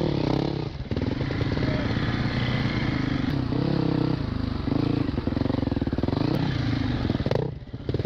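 Four-stroke single-cylinder enduro dirt bike engine being ridden off-road, its pitch rising and falling with the throttle, with a brief drop when the throttle shuts near the end.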